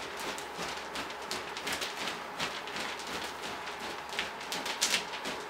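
Two wooden-handled floggers swung in alternating figure eights (Florentine style): repeated airy swishes and light slaps of the tails, several a second in an uneven rhythm.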